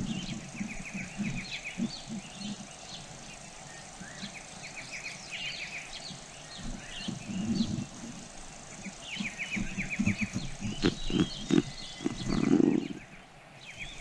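Forest ambience: birds chirping in repeated quick runs of short high notes, over low animal knocks and rustling, with a longer low grunt from an animal about twelve seconds in.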